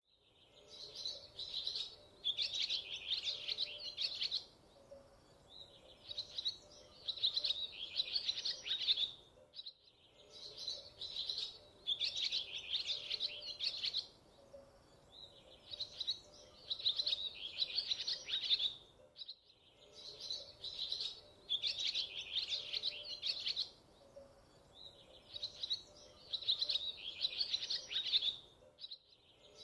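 Birdsong: clusters of quick, high chirps with short pauses between phrases. The same stretch of about ten seconds repeats, with a brief cut-out between repeats.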